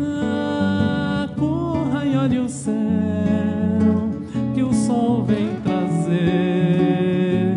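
Nylon-string acoustic guitar playing a chordal accompaniment, with a man's wordless singing weaving over it.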